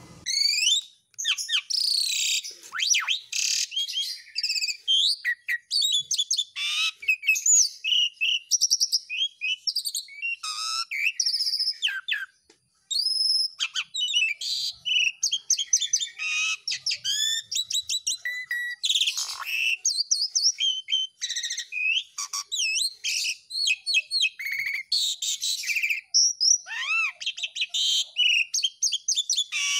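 Asian pied starling singing continuously in a long, varied run of whistles, rattles and rising and falling notes, with one short pause a little under halfway through.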